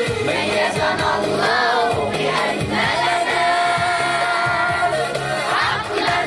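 A group of young voices singing a song together over a backing track with a steady bass line.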